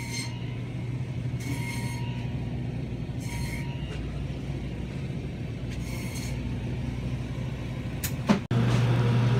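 Steady low hum of a grocery store's refrigerated freezer cases, with a faint short sound repeating about every two seconds. Near the end there is a click, after which the hum is louder.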